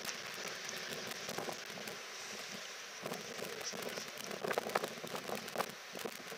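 Passenger coaches of a departing train running away over the rails and points: a crackling hiss of wheel-on-rail noise with irregular sharp clicks, thickest a little past the middle.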